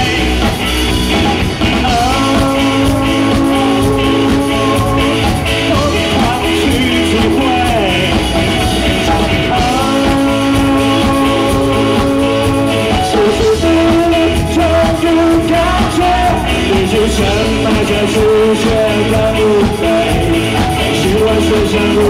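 Live rock band through a PA: a male voice sings long held notes over bass guitar and drums.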